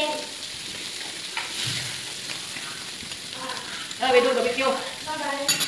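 Food sizzling on a hot tabletop grill plate while chopsticks stir and turn the pieces. A voice joins in about four seconds in.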